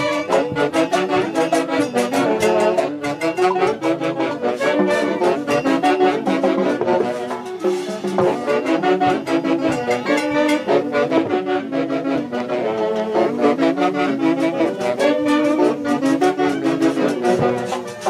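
Lively band music led by brass and saxophone-like winds playing a melody over a quick steady beat.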